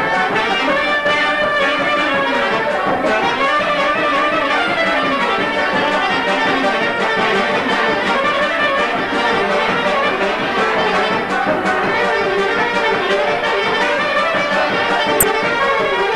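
Soprano saxophone playing a melody over electronic keyboard accompaniment, with a brief click near the end.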